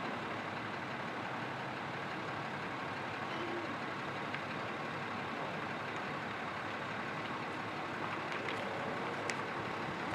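Steady, even outdoor background noise with no distinct events, of the kind an idling vehicle or distant traffic makes.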